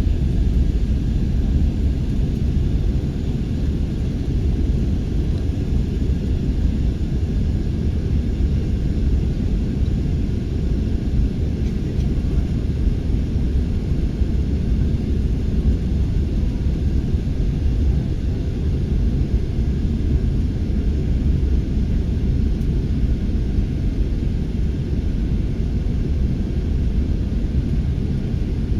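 Airliner cabin noise as the plane comes in to land: a steady low rumble of engines and rushing air, unchanging throughout.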